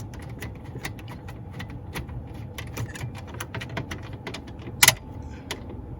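Ratchet clicking in quick short strokes as the stereo's bottom mounting bolt is tightened, with one sharper click about five seconds in.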